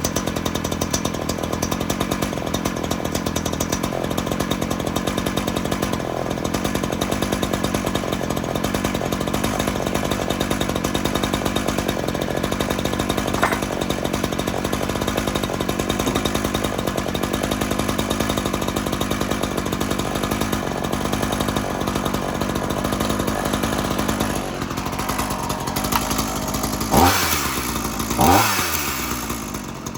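Ryobi two-stroke gas chainsaw running steadily at idle, then revved up sharply and let back down twice near the end.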